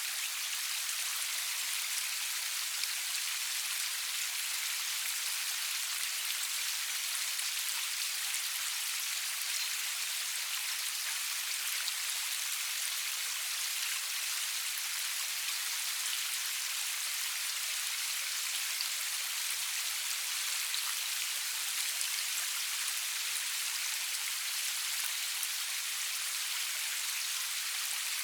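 Steady rain falling, an even hiss of many small drops with no thunder and no music.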